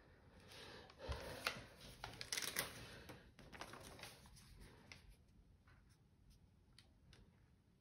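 Paper rustling and crinkling as a diamond painting canvas and its release-paper cover are handled and smoothed flat, busiest in the first few seconds and then dying down.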